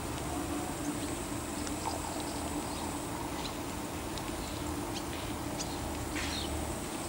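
Outdoor background sound: a steady low hum and a steady high hiss, with scattered short high chirps and one short rasping call about six seconds in.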